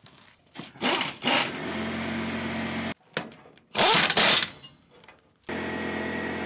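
Air impact wrench running lug nuts onto a truck wheel in short, loud bursts. A steady machine hum comes and goes between them, stopping and starting abruptly.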